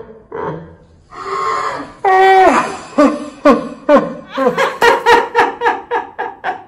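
Hearty laughter in quick repeated bursts, several a second, with a long high drawn-out laugh about two seconds in.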